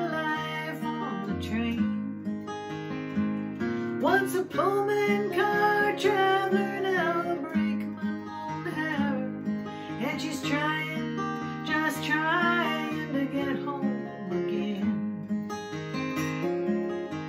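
Steel-string acoustic guitar, capoed, strummed and picked at a slow, lazy pace, with a woman singing phrases over it.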